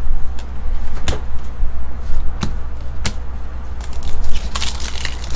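Trading cards and packs being handled, with a handful of short sharp clicks and taps and a brief rustle near the end, over a steady low hum.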